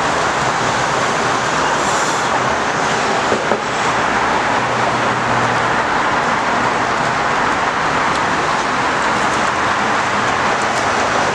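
Steady loud rush of road traffic noise, with no distinct events.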